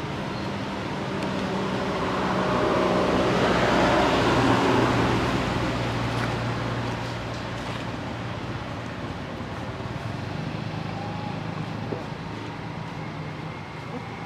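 Motor vehicle passing: its noise swells for a few seconds and fades, over a steady low engine hum.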